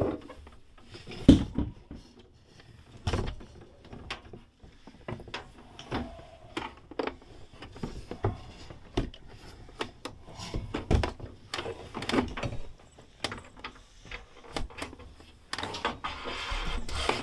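Scattered knocks, clicks and rustles of hands working on boiler wiring and flex cable close to the microphone, with one sharper knock about a second in. A denser rushing noise comes in near the end.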